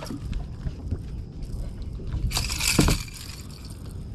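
A freshly caught bass flopping on the carpeted deck of a bass boat: soft scuffing, then a louder thrash ending in a thud a little under three seconds in.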